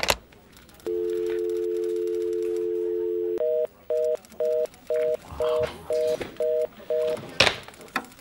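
A click, then a landline telephone dial tone held steady for about two and a half seconds. It gives way to a faster, higher fast-busy (reorder) signal, eight beeps at about two a second.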